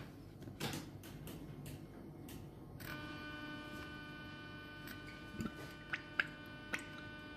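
A few light clicks and taps, then a steady electrical hum with a high, whining overtone that starts suddenly about three seconds in and holds, with a few small ticks over it. This fits an electric hob switching on under a frying pan.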